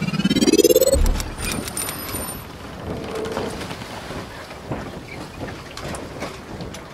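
Logo-intro sound effect: a rising swoosh that ends about a second in with a deep boom, followed by a steady hiss with scattered ticks and clicks.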